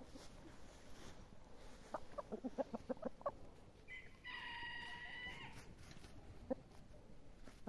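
Chickens calling in a pen: a quick run of short clucks about two seconds in, then one long, steady call lasting over a second, and a single cluck near the end.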